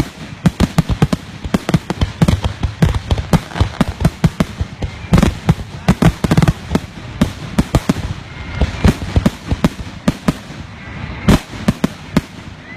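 Fireworks going off in a dense, rapid barrage of loud bangs and crackles, several a second, that stops shortly before the end.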